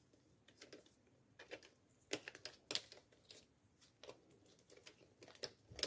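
Plastic laptop screen bezel trim being handled and fitted: a scatter of light, irregular clicks and taps, the sharpest about two and three seconds in.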